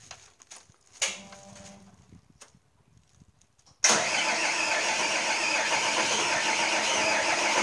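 Restored Hitachi excavator's diesel engine starting: after a near-quiet few seconds with a short sound about a second in, the engine suddenly fires up about four seconds in and keeps running steadily.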